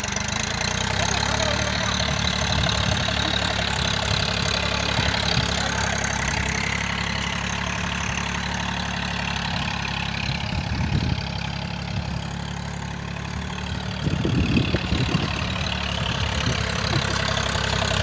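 Tractor engine running steadily at an even low speed, growing briefly louder about fourteen seconds in.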